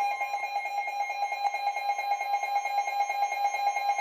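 Weather alert radio sounding its warning alarm: a rapid electronic beeping over a steady single high tone. These are the alert tones that come before a National Weather Service severe thunderstorm warning is read out.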